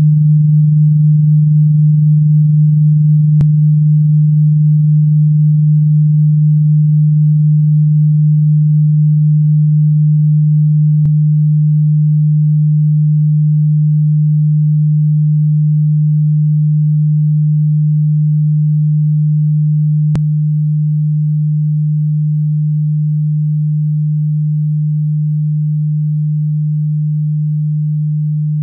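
A steady low electronic sine tone, held at one pitch and slowly getting quieter, with three faint clicks spread through it.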